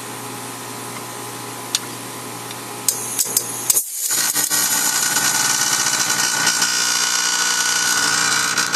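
Heat pump running with a steady hum and a few clicks as the reversing valve wire is connected at the control board. About four seconds in, the sound jumps to a louder hissing rush as the reversing valve shifts the unit into cooling mode.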